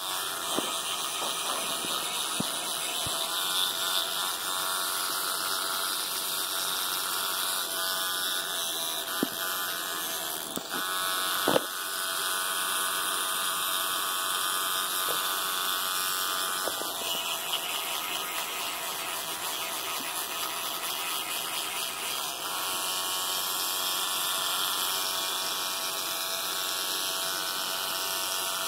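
Electric toothbrush running with a steady buzz while a capuchin monkey holds its brush head in his mouth. A few sharp clicks break in, the loudest about eleven and a half seconds in.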